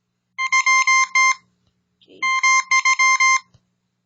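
Morse code beeps from a Morse code generator app: one steady beep tone keyed on and off in dots and dashes. Two letters sound, the second starting about two seconds in.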